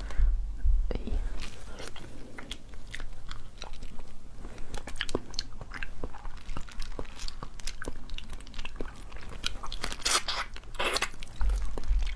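Shells of small cooked crabs and crayfish cracking and crunching as they are pulled apart by hand, in many short sharp cracks, with two longer, louder crunches about ten seconds in.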